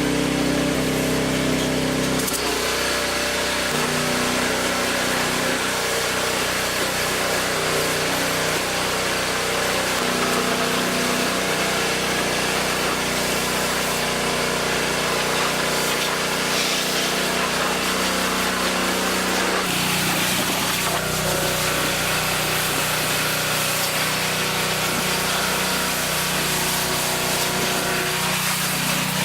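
Pressure washer running, its water jet spraying with a steady hiss over the hum of the machine. The machine's pitch shifts a couple of seconds in and again about two-thirds of the way through.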